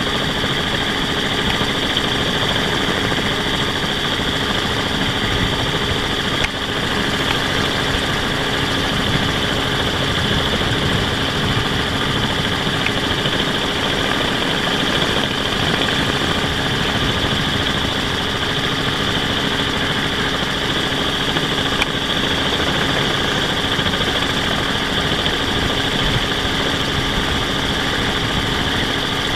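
Steady hum of the rotors and motors of the aircraft carrying the camera, with a constant high whine over a lower drone, unchanging in pitch and level.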